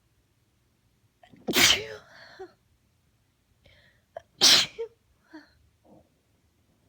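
A woman's two full-blown sneezes from a cold, about three seconds apart, each with a quick breath in just before it and short, quieter breaths after.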